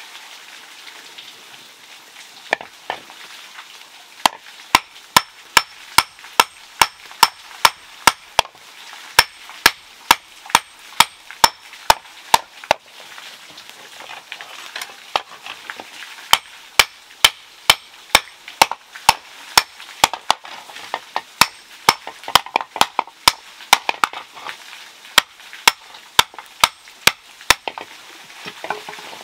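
Hand hammer striking a red-hot iron plate on a stone anvil, forging it into a pan. There are about two to three sharp metallic blows a second, with a lull of a couple of seconds midway.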